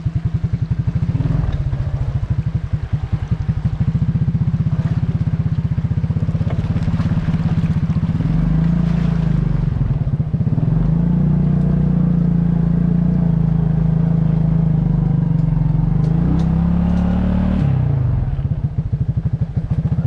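Suzuki King Quad 300 quad bike's single-cylinder four-stroke engine pulling in four-wheel drive through a rocky creek crossing. The engine note rises under load about eight seconds in and again later, then drops suddenly near the end as the throttle eases off.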